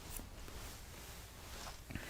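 Faint soft rustling with a light click or two, against quiet room tone.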